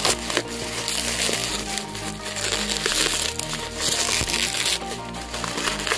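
Plastic bubble wrap crinkling and rustling in uneven bouts as it is pulled open by hand, over background music.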